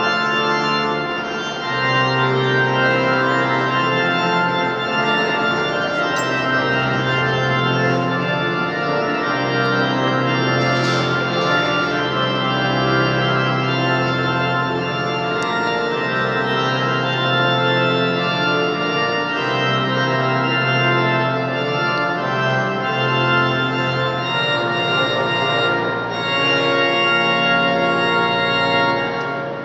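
The Basílica de Nuestra Señora de los Remedios' organ playing a short piece in held, sustained chords that change every second or so.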